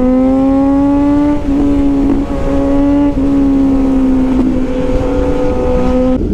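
Motorcycle engine with a full-system exhaust running at steady high revs, its pitch creeping up with a few brief dips. It cuts off suddenly near the end.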